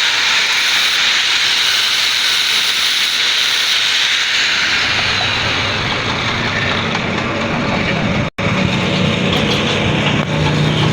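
Loud, steady hissing noise. About halfway through a lower machine hum joins it. Near the end the sound cuts out completely for a split second, then resumes.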